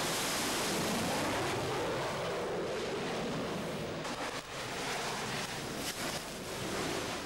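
Harrier jump jet's Pegasus turbofan engine running at full power during a ski-jump takeoff from an aircraft carrier: a loud, steady jet rush that eases slightly after about four seconds as the aircraft climbs away.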